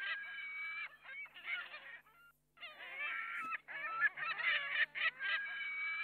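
A flock of greater flamingos honking, many calls overlapping, with a short break a little after two seconds in.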